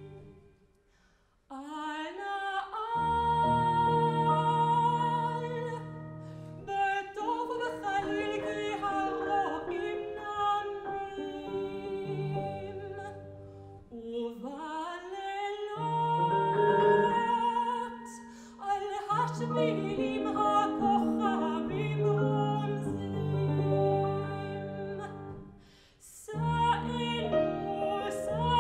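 Soprano singing a Hebrew art song with vibrato, accompanied by grand piano, after a brief near-silent pause about a second in. The voice breaks off briefly about halfway through and again near the end before resuming.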